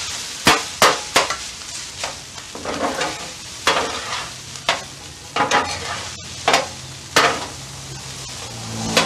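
Two metal spatulas clacking and scraping on a flat-top griddle as rice is chopped and tossed, in sharp irregular strikes about a dozen times, while the rice sizzles in oil on the hot steel.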